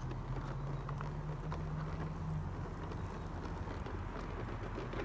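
Radio Flyer tricycle rolling over asphalt: a light, gritty patter from its small wheels on the road, with faint scattered clicks.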